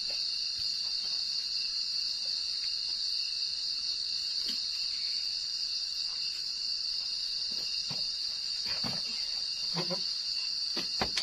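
Steady high-pitched chorus of night insects such as crickets, unbroken throughout. A few light knocks and rustles come near the end.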